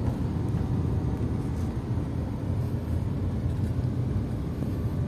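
Car running, a steady low rumble of engine and road noise.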